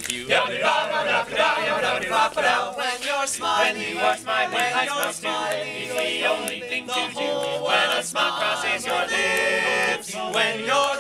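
Male a cappella group singing in close harmony, several voices at once, with a chord held for about a second near the end.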